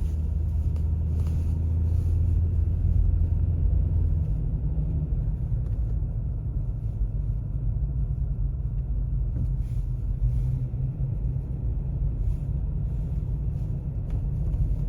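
A loud, steady low rumble, with a low hum in it for the first few seconds that then fades.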